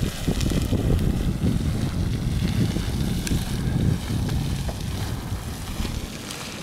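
Beehive Geyser in full eruption: a steady rushing roar from its column of water and steam, with a gusty low rumble, easing slightly near the end.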